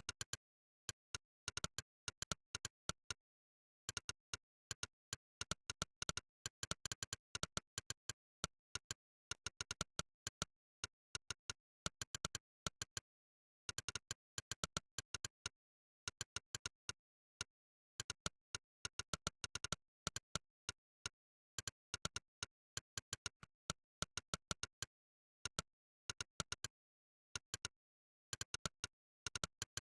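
Monkeytype's 'click' keypress sound effect: a sharp click for each keystroke, several a second in quick runs, broken now and then by pauses of about a second, with dead silence between clicks.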